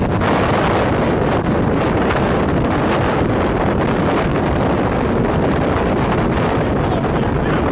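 Hurricane-force wind buffeting the microphone: a loud, steady rush of wind noise, heaviest in the low range, with no let-up.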